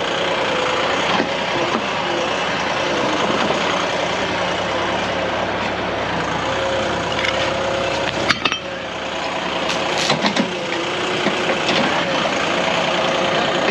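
Heavy diesel equipment engine running steadily, with a sharp knock about eight seconds in and a few lighter clicks soon after.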